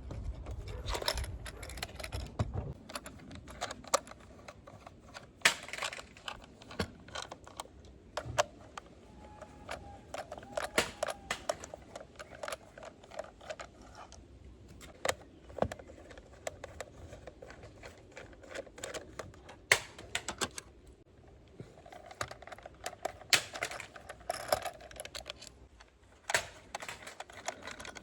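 Irregular clicks, taps and rattles of the hard plastic parts of a toy bubble gun as it is taken apart by hand.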